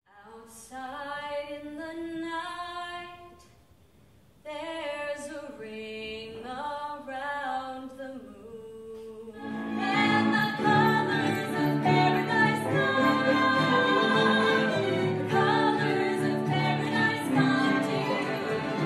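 A woman sings a slow, unaccompanied melody from a stage musical, with a short pause about four seconds in. About halfway through, fuller and louder music comes in under and around the singing.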